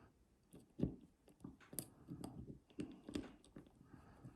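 Faint, irregular clicks and scrapes of a lock pick working the pins of a Master Lock padlock under a tension wrench, with one louder knock about a second in.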